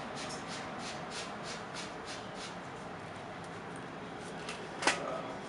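Steady interior hiss of a Berlin S-Bahn class 481/482 train standing at a platform, with faint regular ticking about three times a second in the first half and one sharp click about five seconds in.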